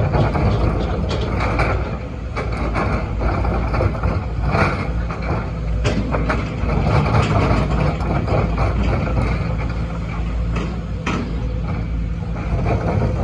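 Sumitomo SH210 hydraulic excavator's diesel engine running steadily, with frequent knocks and clatter from the machine at work.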